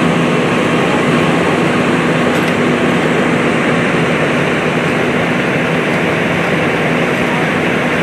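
A running engine drones steadily at constant speed, with a steady low hum and no change in pitch, the kind of noise fire apparatus make while working on scene.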